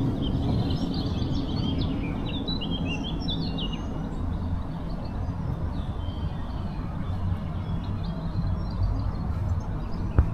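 Outdoor ambience: a steady low rumble of background noise, with small birds chirping in quick runs of calls during the first few seconds and more faintly after. A single sharp knock comes near the end.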